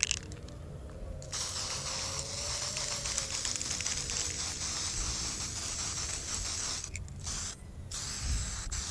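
Aerosol spray-paint can hissing as it sprays paint onto a block wall: one long spray of about five and a half seconds starting about a second in, then two short bursts near the end.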